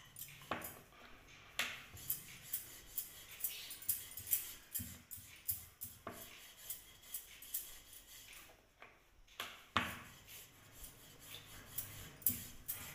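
A rolling pin rolling out a chapati on a round wooden board: a run of light clicks and knocks, a few every second, with a few duller thumps.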